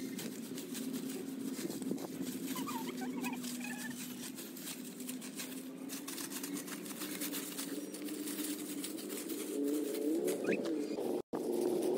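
Stick brooms (walis tingting) sweeping a dirt yard scattered with dry leaves, a continuous run of quick scratchy strokes, over a steady low drone with a few faint bird chirps.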